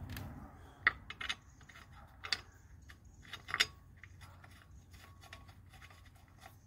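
Light metallic clicks and ticks of a wheel bolt being turned in by hand on an Aixam microcar's alloy wheel, the bolt's head and threads knocking against the rim. The sharpest clicks come about a second in and between two and four seconds in, then fainter ones.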